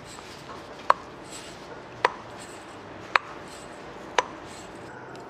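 Failed crankshaft damper pulley off a Volvo XC90 four-cylinder engine, worked by hand and giving four sharp clicks about a second apart. Its loose outer ring is the source of the engine's rattling tick.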